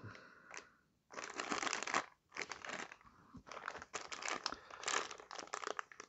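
Small clear plastic zip-lock bag crinkling as hands handle it, in irregular bursts with short pauses between.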